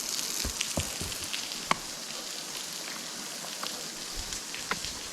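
Small waterfall with a nice flow pouring down: a steady hiss of falling and splashing water, with scattered sharp drip clicks, one louder splash about a third of the way in.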